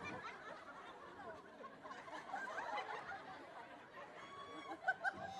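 A crowd laughing and chattering at once, with a few sharper laughs near the end.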